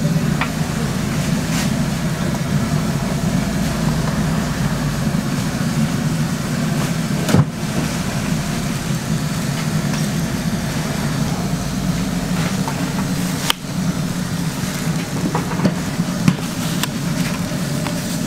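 A steady low mechanical hum, with a few light clicks and knocks over it.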